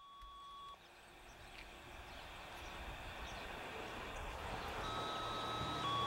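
Two-tone sequential paging signal from the county dispatch, activating the outdoor warning siren: a higher steady tone held about a second near the end, then straight into a lower held tone. Before that, a steady tone cuts off under a second in, and outdoor background noise slowly grows louder.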